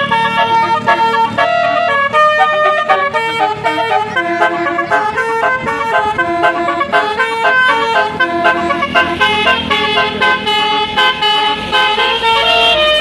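Bus telolet horn, a multi-trumpet air horn playing a tune: loud held notes that step from pitch to pitch every fraction of a second, several tones sounding together.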